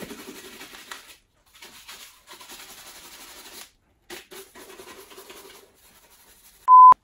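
A shoe brush scrubbing a black leather shoe in runs of quick scratchy strokes, with short pauses between the runs. Near the end a short, loud, steady beep cuts in.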